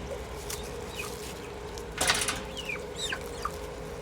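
Farm poultry calling with repeated short, high, falling peeps, and a brief loud rustle about two seconds in, such as wings flapping.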